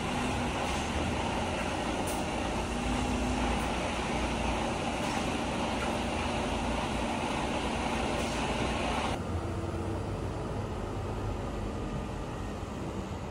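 Heavy tractor unit's diesel engine running as it hauls a loaded low-loader, a steady low rumble. About nine seconds in it breaks off abruptly to a quieter steady hum.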